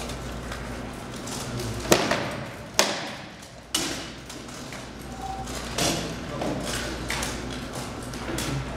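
Rattan swords striking shields and armor in heavy armored sparring: three loud, sharp blows between about two and four seconds in, then a few lighter hits, each ringing briefly in a large hall.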